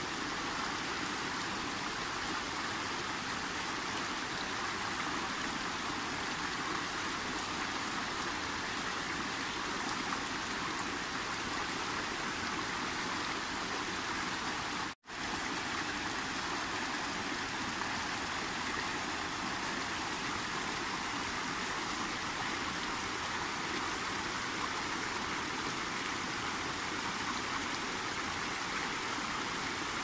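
Steady rush of a rocky stream below a waterfall, water pouring and splashing over boulders. The sound drops out for an instant about halfway through, then resumes unchanged.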